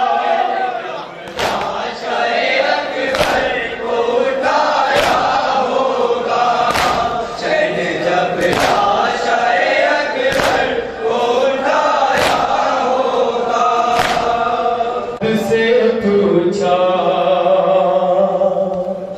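A crowd of male mourners chanting a noha in unison, with a sharp, unified matam chest-beating strike in time about every two seconds. The strikes stop about fourteen seconds in while the chanting carries on.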